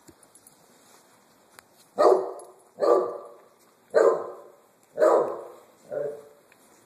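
A dog barking five times, about once a second, each bark trailing off, the last one softer.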